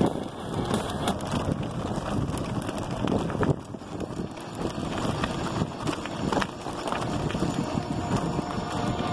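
Electric bike's tyres rolling and crunching over a gravel road, with gusts of wind buffeting the microphone.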